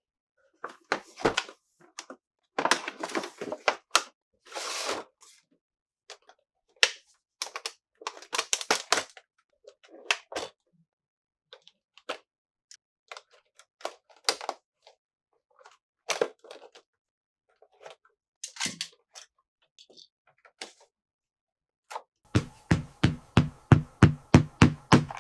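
Small plastic toy pieces and packaging being handled: scattered clicks and taps with short bursts of rustling. Near the end comes a quick, even run of about a dozen knocks, roughly four a second.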